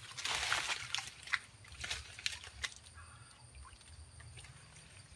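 Shallow creek water splashing and sloshing at the bank, with a few sharp clicks over the first three seconds, then settling. A faint steady high tone carries on after that.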